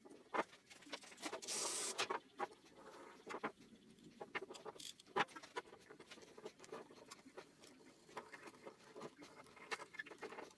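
Faint handling sounds of small parts and tools: scattered clicks and light knocks, with a short hiss about a second and a half in.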